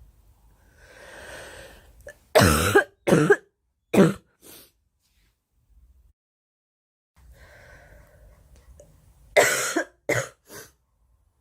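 A girl coughing in two fits. Each starts with an audible breath in, followed by short, sharp coughs: four in the first fit and three in the second, near the end.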